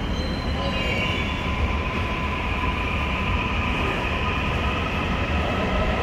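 Seohae Line electric multiple-unit train pulling out of an underground station platform: a steady low rumble of wheels on rail with thin, high whining tones over it.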